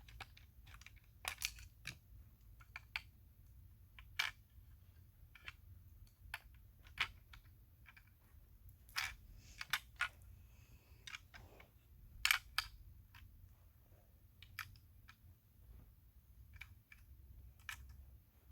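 Irregular small clicks and taps of hard parts being handled and fitted together as batteries go into a diecast toy car, with one sharper click about twelve seconds in and a brief scratchy rustle shortly before it.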